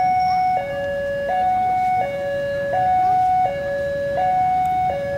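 Railway level-crossing warning alarm sounding its two alternating tones, high then low, each held for about two-thirds of a second in a steady repeat, signalling that a train is approaching the crossing.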